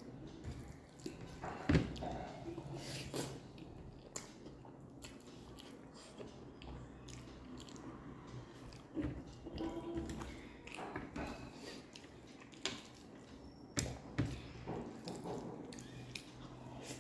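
Close-up eating sounds: fingers squishing and mixing rice with dal fry on a plate, and chewing with scattered wet mouth clicks and smacks.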